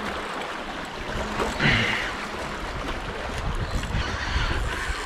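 Steady wash of water with wind noise, and a brief voice sound about a second and a half in.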